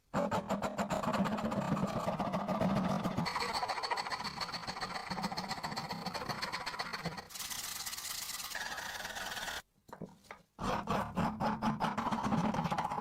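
Fast, repeated rubbing and scraping strokes on an old knife being worked by hand, in several cut-together stretches. There is a short near-silent gap about ten seconds in.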